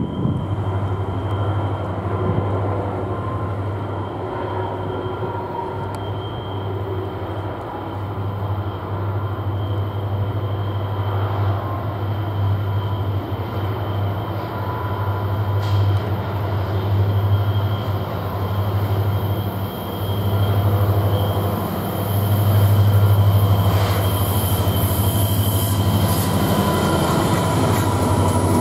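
Norfolk Southern diesel freight train rolling past on a sharp curve: a steady low rumble with a thin, high, steady squeal from the wheel flanges, growing a little louder toward the end.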